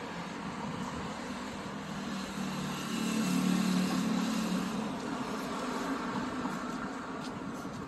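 Street traffic: a car passes by, its engine and tyre noise swelling about halfway through and then fading, over a steady hum of traffic.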